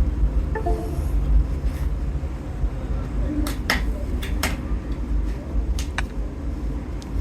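A steady low rumble of background noise with several sharp clicks, most of them between about three and a half and six seconds in.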